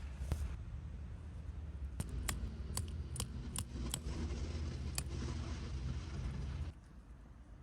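Scattered light clicks and clinks of small objects being handled, over a steady low hum that stops abruptly about a second before the end.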